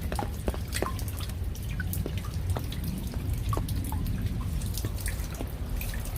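Raindrops falling in separate, irregular drips and taps, some with a short pitched ping, over a steady low rumble.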